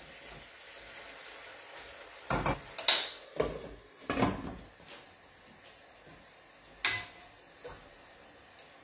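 Metal cooking utensils and pans knocking and scraping on a gas stove: about half a dozen separate clinks and scrapes, most of them in the first half, then two more later on.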